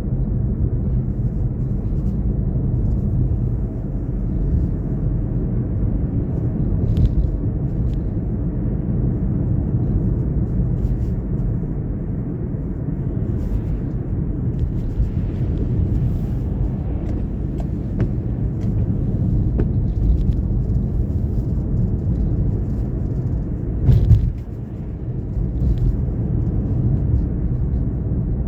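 Car driving along a road: a steady low rumble of tyres and engine, with a few faint ticks and a short thump near the end.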